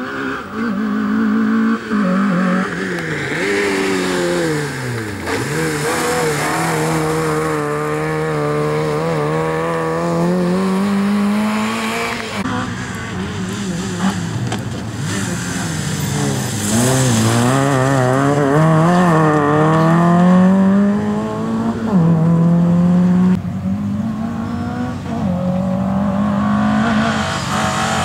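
Fiat Seicento rally car's engine revved hard, its pitch climbing and dropping again and again as the car accelerates, brakes and changes gear through the corners.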